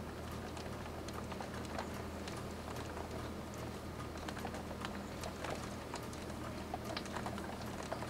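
Rain pattering in irregular drops and taps on a hard surface, over a steady low hum.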